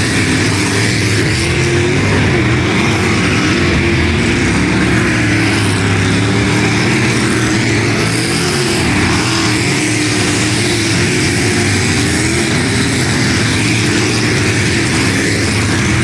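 Several race car engines running hard on a short oval, their pitches rising and falling over one another as the cars lap the track.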